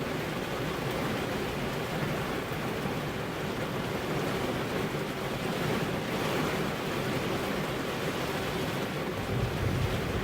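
Steady rain pattering on a car's glass windows, a dense even hiss. A low rumble swells near the end.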